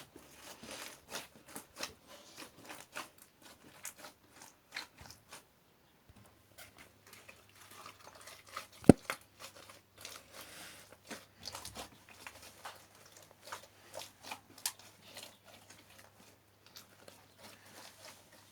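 Slime being mixed and squeezed by hand, giving a string of irregular small clicks and crackles, with one sharp, much louder snap about halfway through.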